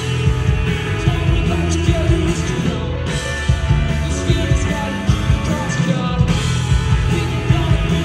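A rock band playing live, with singing.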